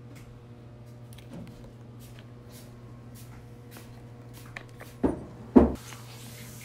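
Wet cat-food pâté being scraped out of its plastic tray onto a metal plate with a utensil: small scraping clicks, then two dull knocks about half a second apart near the end as the utensil and tray hit the plate. A steady low hum runs underneath.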